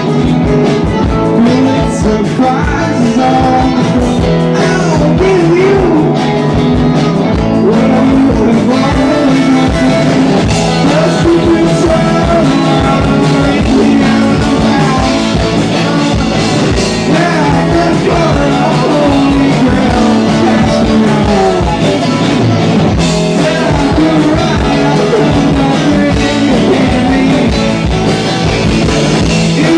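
Live rock band playing a song: amplified electric guitar over a steady drum beat, with a singer.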